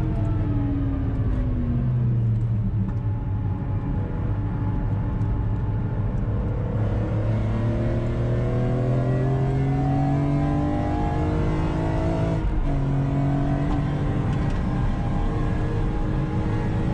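BMW E46 M3 CSL's straight-six engine heard from inside the cabin on a fast lap: the note falls as the car slows, holds, then climbs hard under acceleration, with a quick upshift about twelve seconds in before it climbs again.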